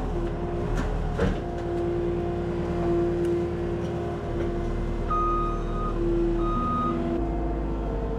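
Skid steer loader engine running steadily, with a couple of metal clanks about a second in. Its reversing alarm beeps twice near the end as the machine backs up.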